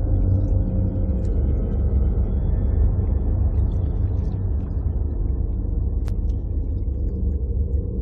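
A deep, steady rumbling drone from a dark ambient background score.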